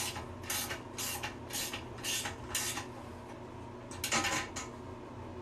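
Ratchet wrench worked in short strokes on a toilet tank-to-bowl bolt nut: a short burst of metallic clicking about every half second, then a longer run of clicks about four seconds in.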